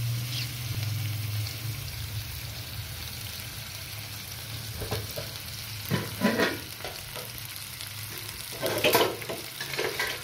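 Raw chicken pieces sizzling in oil in a non-stick frying pan, with a steady hiss and louder bursts around the middle and near the end.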